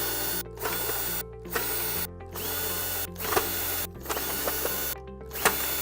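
Cordless power screwdriver running in repeated short bursts with brief stops between them as it backs out the screws holding the pool cleaner's idler, over background music.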